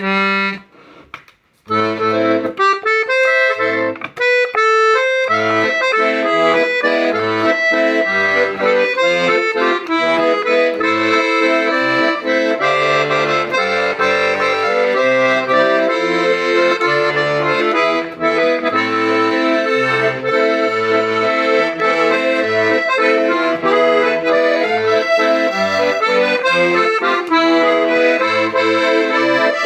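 Hohner Concerto II piano accordion being played: a melody on the treble side over regularly alternating bass notes and chords from the left hand, starting again after a short pause about a second in.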